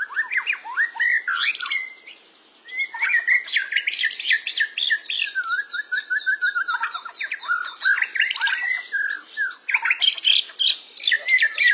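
White-rumped shama (murai batu) singing a varied, loud whistled song. It breaks off briefly about two seconds in, then gives a long run of fast, evenly repeated high notes, about seven a second, before returning to mixed phrases.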